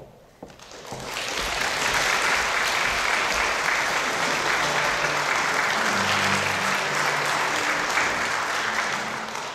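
Audience applauding, swelling up about a second in, holding steady, then starting to die away near the end.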